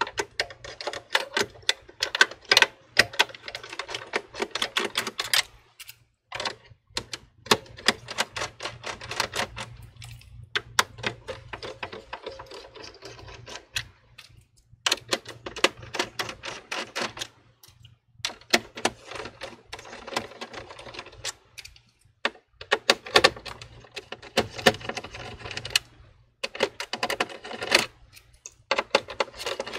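Phillips screwdriver turning out the small screws that hold an all-in-one computer's LCD screen to its base: quick runs of clicking and scraping a few seconds long, with short pauses between screws.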